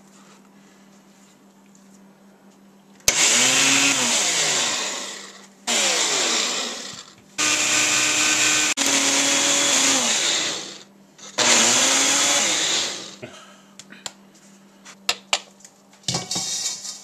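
Ninja Professional blender pulsed in a series of short bursts, the motor spinning up and winding down each time as it grinds dried tobacco leaves finer. Light clicks and a short rattle follow near the end.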